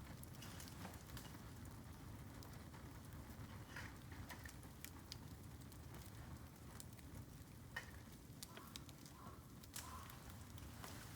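Bamboo campfire crackling faintly, with scattered small snaps and ticks at irregular intervals over a low steady background noise.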